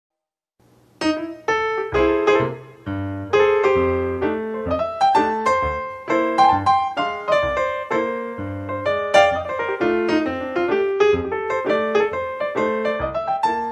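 Background piano music: a melody of quick, separate notes that starts about a second in, after a brief silence.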